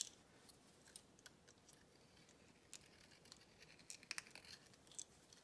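Faint scraping and light ticking of a hand-held swivel-blade deburring tool shaving the burr from the edge of a drilled hole in a white plastic roller, cutting a small chamfer. A sharp click comes right at the start.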